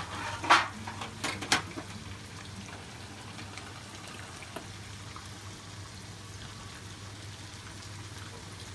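Thick tuna steaks frying in oil in a pan with a steady, soft sizzle. A few sharp clicks come in the first second and a half.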